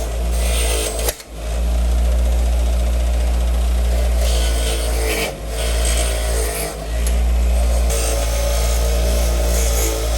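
Power tool running steadily while cleaning up brake parts, with brief drops in its sound about a second in and again around five and a half and seven seconds in.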